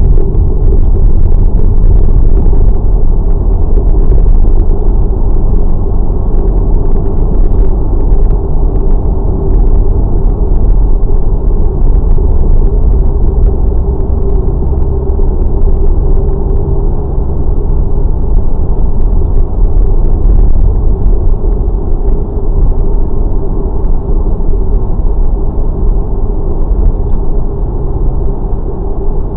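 Steady low rumble of a vehicle on the move, with a constant hum running through it.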